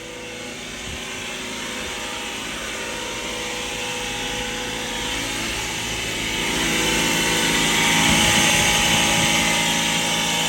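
A damaged heat pump compressor running with a steady, loud mechanical noise that grows louder about six seconds in. The compressor overheated while very low on refrigerant and is taken to be burnt up and worn.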